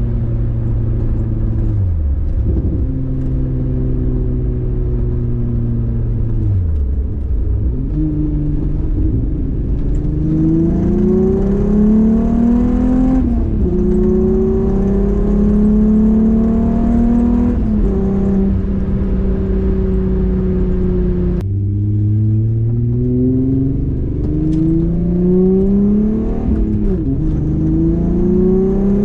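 Volkswagen VR6 engine driving. It holds a steady note and then eases off twice, before accelerating through the gears: the pitch climbs and then drops back at each gear change, several times over.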